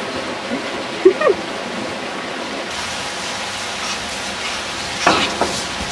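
Steady rushing noise like running water, with a short rising cry about a second in and a brief louder burst near the end.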